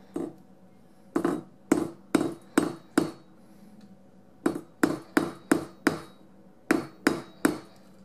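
A hammer tapping on a steel anvil, about fourteen sharp taps in short uneven groups, each with a brief metallic ring. These are light taps setting soldered jump-ring crimp beads onto leather cord.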